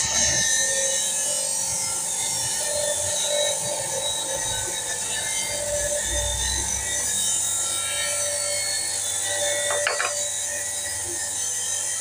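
Hydraulic hose crimping machine's motor-driven pump running steadily, a constant whine over a hiss and low hum. A brief click near the end.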